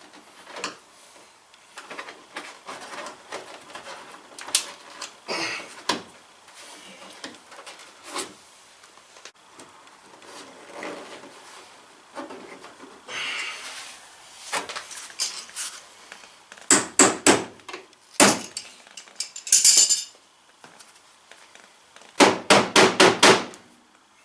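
Hand work fitting a mud flap's plastic clips and hardware: scattered clicks and rattles, a few loud knocks in the second half, and a quick run of about seven sharp knocks near the end.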